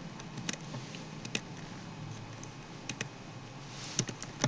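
Computer keyboard key presses and mouse clicks, about half a dozen short, scattered clicks.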